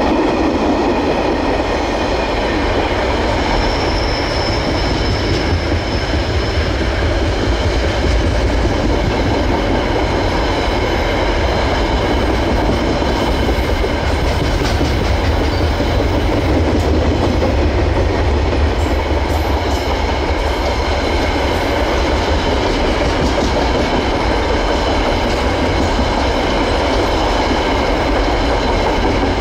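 Long KiwiRail freight train rolling past, a loud steady rumble of wagon wheels clicking over the rail joints, with a faint high wheel squeal.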